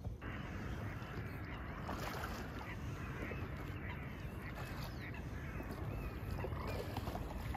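Kayak paddling on calm water: steady splashing and dripping from the paddle strokes and the water running past the hull, starting abruptly.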